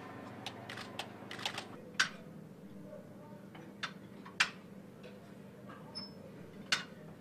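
Scattered sharp clicks and knocks at uneven intervals, over a steady low hum: a person crawling inside a jet fighter's air intake duct, body and knees knocking against the duct walls.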